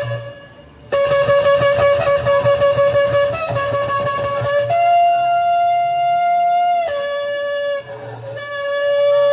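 Shofar blasts, sounded as a call to repentance. A blast ends just after the start. About a second in comes a long, pulsing blast that jumps to a higher, steady held note and cuts off around seven seconds. A further blast sounds near the end.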